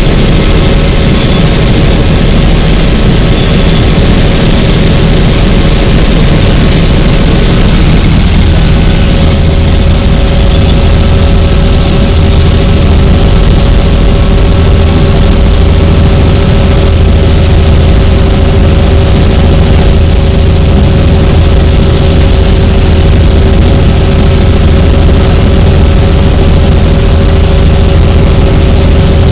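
Helicopter cabin noise: a steady high turbine whine over a heavy low drone from the engine and rotor, the drone growing stronger about nine seconds in.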